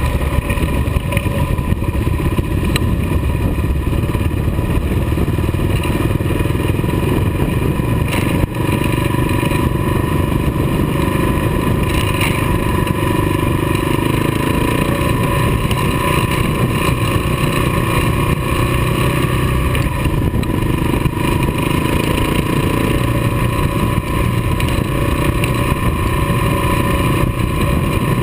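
Kawasaki KLR dual-sport motorcycle's single-cylinder engine running steadily at cruising speed on a gravel road, heard from a camera mounted on the bike, with tyre and gravel noise and a few brief clicks.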